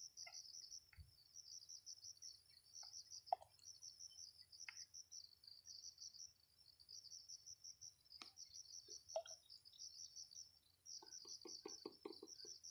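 Insects trilling faintly in repeated high-pitched bursts, with a few scattered clicks and a short run of quick soft taps near the end.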